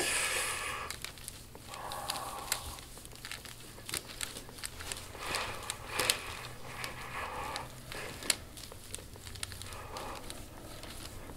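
Soft rubbing and crinkling from a deep-tissue massage, an elbow sliding back and forth over the back. It comes in repeated strokes roughly every one and a half to two seconds, with scattered small crackles.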